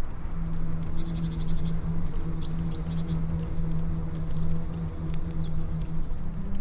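Several short, high chirps scattered through, over a steady low hum.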